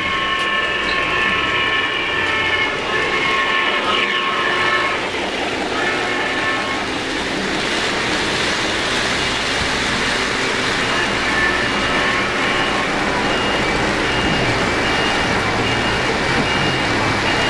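Three-rail O-gauge model train running past on the layout track, its wheels rumbling over a steady background din. A held chord of steady tones, like a model locomotive's whistle, sounds through the first few seconds. A high tone repeats at an even pace through the later part.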